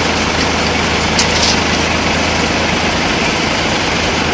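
Fire engine's diesel engine running steadily while driving its pump to feed the connected hoses, with a brief hiss about a second in.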